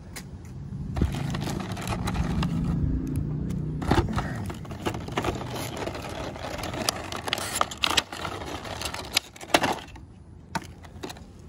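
Plastic packaging and a cardboard fan box being handled and opened: rustling and crinkling with many sharp clicks and taps, over a low rumble in the first few seconds.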